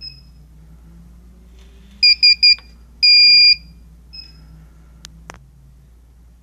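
Piezo beeper of a Solaris infrared barrier tower: three quick beeps about two seconds in, the signal that the tower has entered alignment mode, followed by a half-second tone and then a faint single beep, the sign that it is on cell 1. Two sharp clicks follow shortly after.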